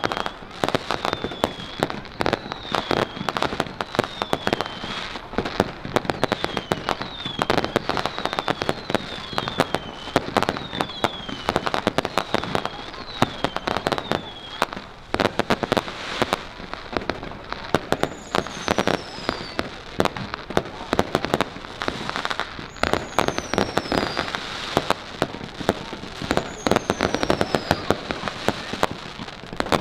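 Fireworks display: a dense, unbroken run of bangs and crackles from bursting shells. Short falling whistles come about once a second until about halfway, then three longer, higher falling whistles in the second half.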